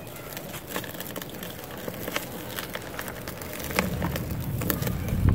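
Dry cement lump crumbling in bare hands: a run of small crackles and gritty crunches, building near the end to a heavier, louder crush as the lump is squeezed apart.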